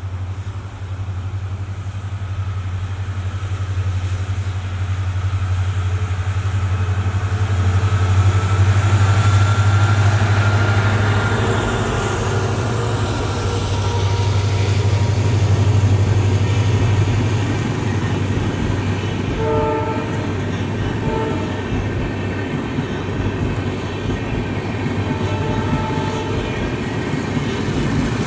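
WDG4 diesel locomotive's 16-cylinder two-stroke EMD engine running with a deep drone as it hauls an express passenger train past, loudest about ten seconds in, then the coaches' wheels rumbling and clattering over the rail joints. A few short horn blasts sound about twenty seconds in.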